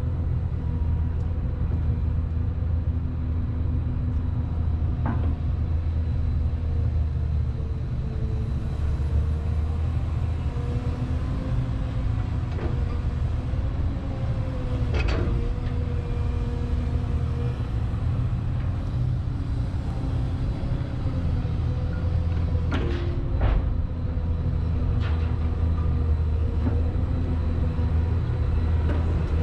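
A ship's excavator's diesel engine runs with a steady low drone, its pitch wavering a little under hydraulic load as it digs bulk cargo out of the hold. A few sharp knocks come through, about five, fifteen and twenty-three seconds in, typical of the steel bucket striking the hold.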